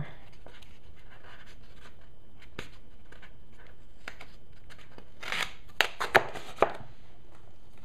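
Hands handling a white foam cup with a snap-on lid on a tiled floor: light rubbing and scraping, then three sharp clicks about six to seven seconds in.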